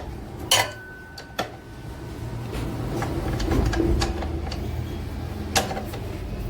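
A few sharp metal clicks and knocks of a wrench working a loose bolt on a motorcycle, over a low steady hum that swells in the middle.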